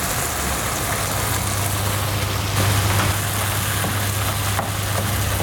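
Lamb ragout in tomato sauce sizzling and simmering in a frying pan, over a steady low hum. A wooden spoon stirs the pan near the end, with a few faint scrapes.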